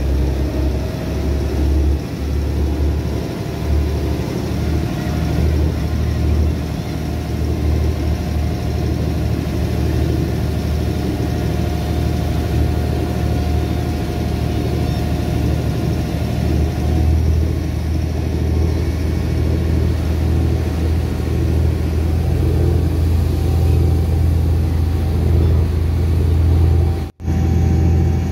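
Motor boat's engine running steadily under way: a low rumble with a faint steady whine above it, over wind and water noise. The sound drops out for an instant near the end.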